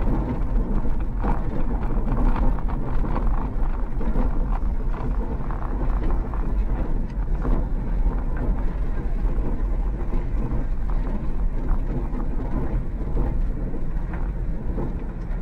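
Vehicle driving slowly over a gravel lot, heard from inside the cabin: a steady low engine and road rumble with many small ticks and rattles from the tyres on the gravel.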